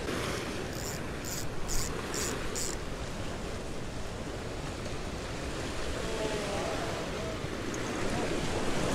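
Steady wind on the microphone and surf washing against the jetty. About a second in come five quick, high ticks, roughly two a second.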